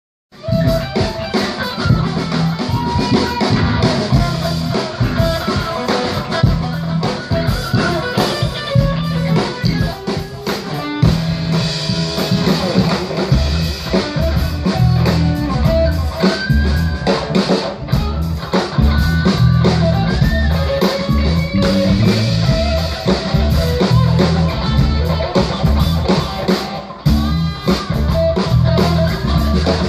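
Live instrumental rock band: electric guitar, electric bass and drum kit playing together.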